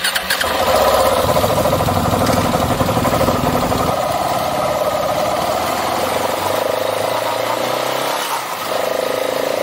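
KTM 690 Enduro single-cylinder motorcycle engine running under way, with wind rush. The engine note rises in pitch in the last few seconds as the bike speeds up.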